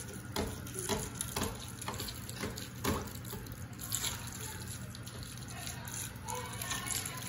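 Bathtub tap running, its stream splashing into the water of the filling tub: a steady rush with short louder spatters now and then, most of them in the first half.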